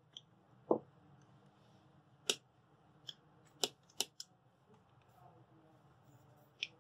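An electric hand mixer and its wire beaters being handled over a bowl: about eight sharp clicks and taps scattered through the stretch, with a faint low hum underneath.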